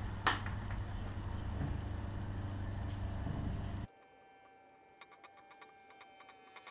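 Faint steady hum of garage room tone with a single sharp click just after the start. About four seconds in, the sound drops out suddenly to near silence, leaving only a few faint ticks and a thin steady tone.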